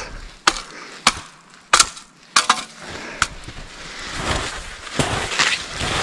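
A series of sharp wooden cracks and knocks, about six in the first three seconds, as an old resin-tapping funnel is knocked loose from a pine trunk. Then a denser shuffling noise of skis moving through snow.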